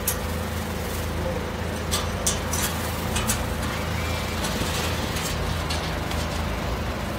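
A vehicle engine idling steadily with a low rumble. Over it comes the crinkle of plastic sheeting and a few sharp clicks as the protective cover is pulled off a motorcycle in its crate.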